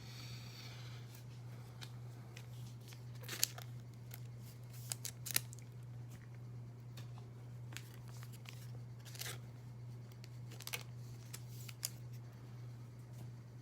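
Trading cards being handled and set down: scattered light scrapes and clicks of card and plastic, over a steady low hum.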